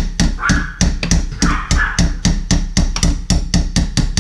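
Rapid, even hammer taps, about four a second, on a tool set against a Moen 1225 faucet cartridge in a kitchen faucet, working at the cartridge.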